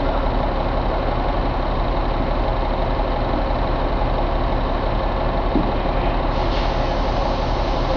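1994 Caterpillar 3306 inline-six diesel engine running steadily.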